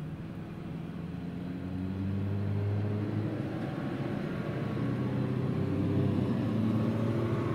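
A motor vehicle's engine running with a low hum, growing steadily louder.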